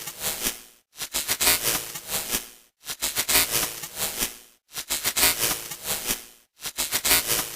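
Malfunctioning-TV sound effect: crackling, rattling static that repeats in bursts about every two seconds, each starting suddenly, fading away and breaking off in a short dropout.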